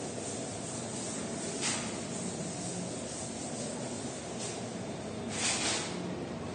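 Chalkboard duster wiping across a blackboard: a few short brushing strokes, the strongest near the end, over a steady background hiss.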